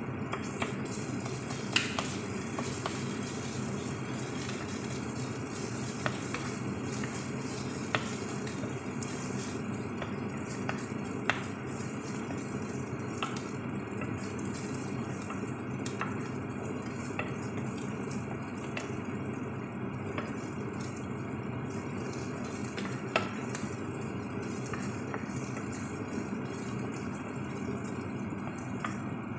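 Chopped aromatics frying in oil in a nonstick frying pan, with a steady low hum and sizzle underneath. A wooden spatula stirs them and knocks sharply against the pan now and then.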